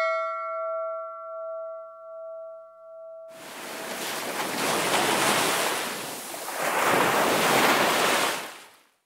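A bell-like chime ringing out and fading over about three seconds, then a rushing wash like ocean surf that swells twice and fades away just before the end: an intro sound effect of breaking waves.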